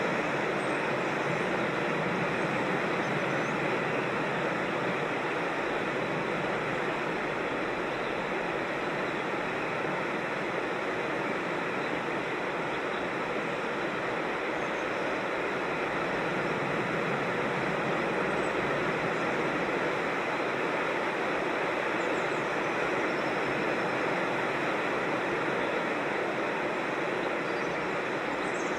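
Steady rushing of water falling in a creek, with a few faint high bird chirps now and then.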